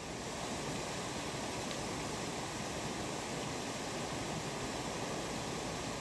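Steady, even rushing noise of open water and wind, with a faint steady high tone underneath.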